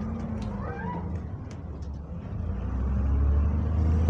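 Double-decker bus diesel engine running, heard from inside the bus; about two and a half seconds in its low hum grows louder as the bus pulls harder, with a faint high whine joining it.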